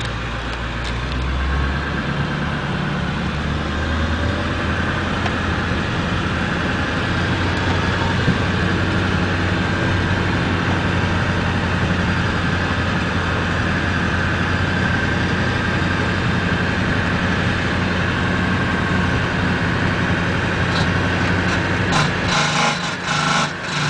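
Ford 7.3 engine running steadily, with a grinding noise that the owner cannot identify. Near the end comes a run of sharp knocks or clatter as the engine tone drops.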